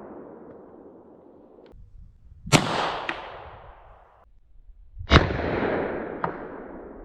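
Two handgun shots about two and a half seconds apart, each a sharp crack followed by a long rolling echo that fades over a second or two. A fainter second crack follows each shot about half a second later.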